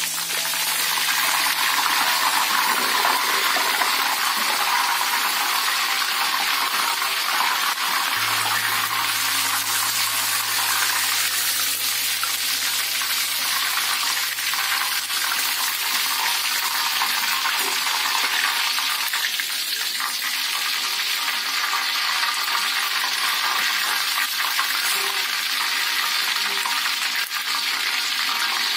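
Red chilies deep-frying in hot oil in a wok: a steady sizzle, with the chilies stirred in the oil.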